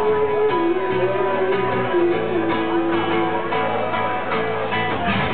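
Acoustic guitar played live as song accompaniment, with a held melody line stepping between sustained notes over the strumming.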